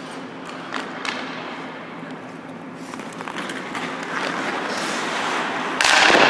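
Hockey skate blades carving and scraping across rink ice, with a couple of sharp stick-on-ice taps about a second in. The scraping grows louder, and a sudden much louder scrape cuts in near the end.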